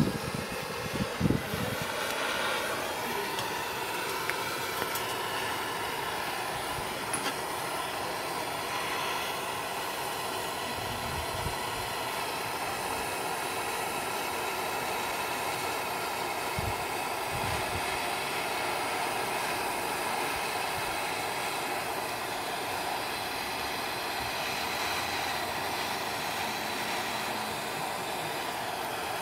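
Brazing torch flame burning steadily with a constant rushing hiss, heating a copper water pipe for a braze. A few faint knocks sound early on and near the middle.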